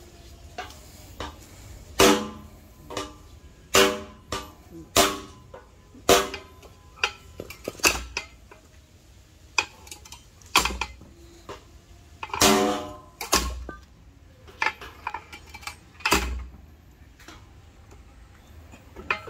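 Metal clanks on a vertical metal well pipe being worked with a pipe wrench, coming at irregular gaps of one to three seconds, each ringing briefly with a clear pitch, several with a dull thud underneath.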